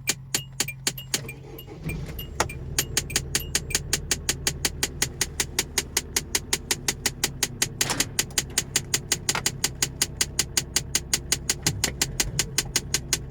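Rapid, evenly spaced clicking from inside a SsangYong Kyron's dashboard heater unit, about four clicks a second and quickening to about six a second after a couple of seconds, over a steady low hum. The owner traces it to the heater's flap latches catching.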